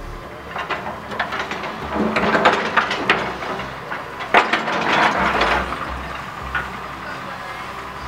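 Irregular clatter of sharp knocks and clicks, thickest and loudest from about two to five and a half seconds in, with one hard knock in the middle of it, over a steady low background hum.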